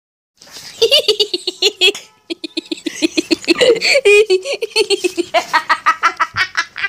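A boy giggling and laughing in quick, high-pitched ha-ha-ha pulses. The laughter breaks off briefly about two seconds in, then carries on in longer runs.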